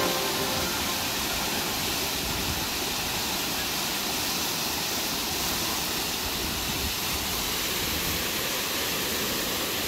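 Waterfall pouring over rock into a pool: a steady, even rush of falling water.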